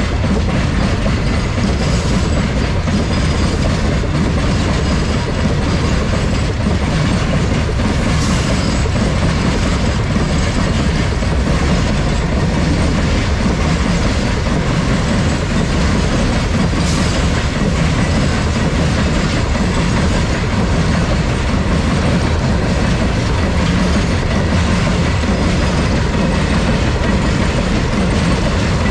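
Freight train wagons rolling steadily on the rails: a continuous loud noise of wheels on track that neither builds nor fades, with a few faint sharp clicks.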